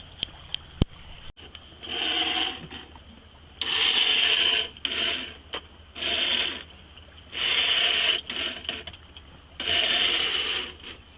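Electric tiller autopilot's drive motor whirring in five separate bursts of about a second each, with a few sharp clicks near the start, as it drives the tiller back and forth. The pilot is working hard to hold course sailing downwind.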